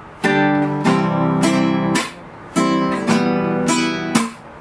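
Acoustic guitar strummed slowly in a down-up-strike-up pattern. Twice a fingernail strike slaps and mutes the strings, so the ringing cuts off. The chords move from G through C to E minor.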